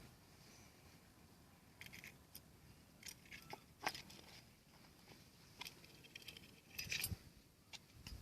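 Faint, scattered clicks and light scrapes from handling small metal parts and tools, with the sharpest click about four seconds in.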